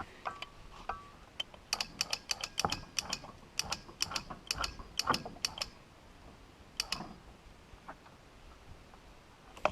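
Hand winch ratcheting as the sawmill is cranked up: a run of sharp, irregular clicks for about four seconds, then a single click a little later.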